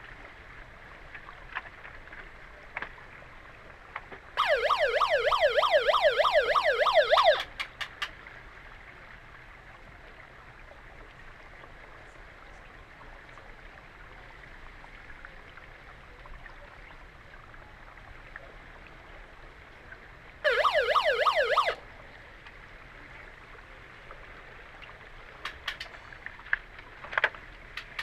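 Underwater hockey referees' underwater siren, heard through the water, sounding the signal that stops play: two loud, fast-warbling blasts, the first about three seconds long, the second just over a second. Between them a steady underwater hiss, with a few sharp clicks near the end.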